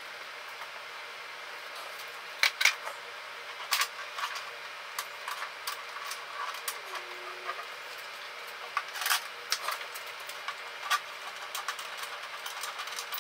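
Scattered metallic clinks and knocks of hand tools and parts while a lawnmower engine is bolted back onto its deck, over a steady low hum. The loudest knocks come about two and a half seconds in, near four seconds, and around nine seconds.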